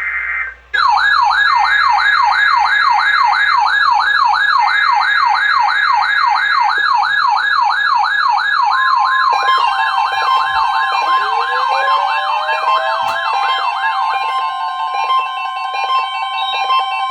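A weather-radio test alarm. It opens with the last of the station's digital data-burst header tones, then a fast warbling siren-like tone sweeping up and down. About nine seconds in, a steady tone and other overlapping alarm tones join it, one of them slowly rising in pitch.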